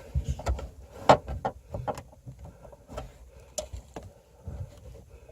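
Scattered light clicks and knocks of hands handling a 6x9 speaker and starting its mounting screws loosely in a car's rear parcel shelf, the sharpest knock a little over a second in.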